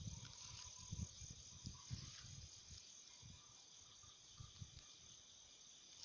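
Near silence: a faint, steady high-pitched insect chorus, with scattered soft low thuds that thin out over the last couple of seconds.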